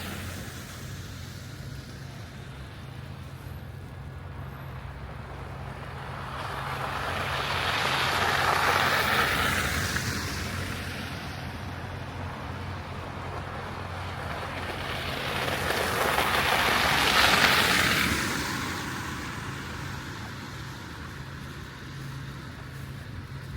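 Street traffic in falling snow: two vehicles pass one after the other, each a hiss of tyres that swells and fades, over a steady low hum of the street.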